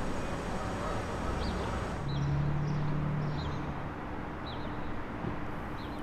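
Outdoor urban ambience: a steady rumble of distant traffic, with a lower engine hum swelling for a couple of seconds about two seconds in, and short high bird chirps about once a second.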